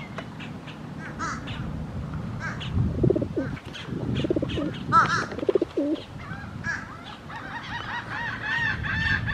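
Birds calling at close range: pigeons cooing in the middle, with higher chirping calls throughout that run together into a quick series near the end.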